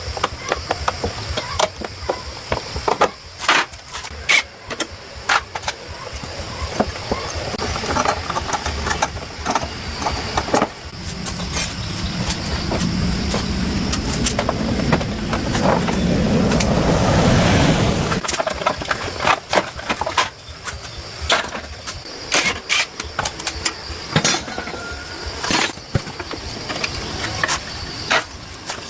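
Sharp metallic clanks and knocks of hand tools. Midway, a small engine or motor runs for about seven seconds, growing louder, then cuts off abruptly.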